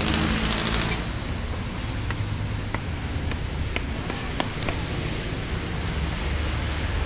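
Steady low rumble and hiss of handling and wind noise on a handheld phone microphone carried while walking, with a brief louder rustle in the first second and a few faint clicks.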